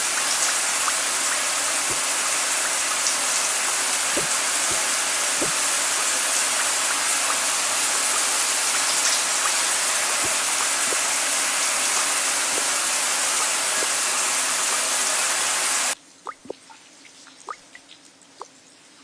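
Water running steadily with a few small knocks, shut off abruptly about 16 seconds in, followed by a few light clicks.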